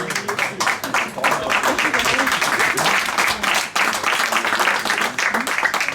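Audience applauding: many hands clapping steadily, with some voices mixed in.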